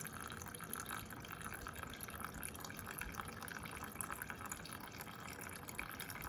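Gasoline draining out of a Honda Express NA50 moped's fuel tank through a hose, a steady trickle with small drips.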